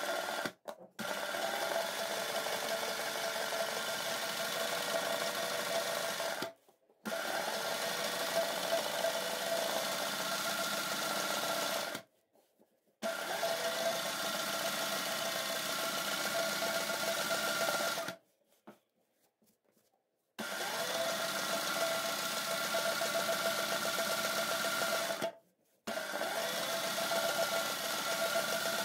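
Sewing machine stitching embroidery, the fabric guided by hand. It runs in stretches of about five seconds, stopping abruptly four times for a second or two before starting again.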